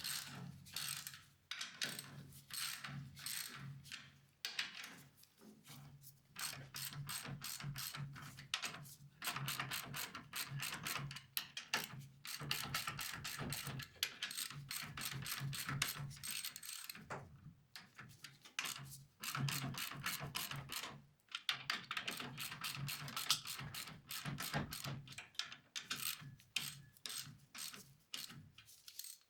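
Hand ratchet clicking in quick runs of strokes with short pauses, as bolts are tightened to draw a VW Beetle's torsion bar up onto its stop.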